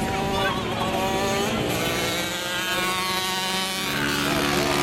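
Flat-track racing motorcycle engines running hard on the dirt oval, their pitch rising and falling as riders get on and off the throttle, with one engine's note dropping away about three seconds in.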